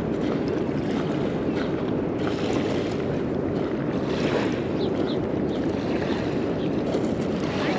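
Steady wind noise on the microphone, with small waves lapping at a pebble shore.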